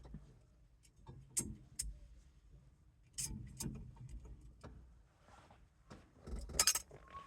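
Small metal parts of a steering-wheel horn kit clicking and clattering as they are handled and fitted together, in irregular sharp clicks with a louder rattle near the end.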